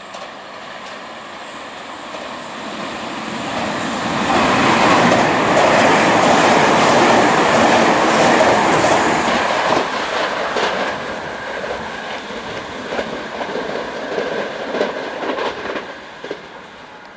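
Tobu N100 Spacia X electric express train passing through a station: its noise swells as it approaches, is loudest as the cars go by, then tails off in a run of clacks from the wheels crossing rail joints and points.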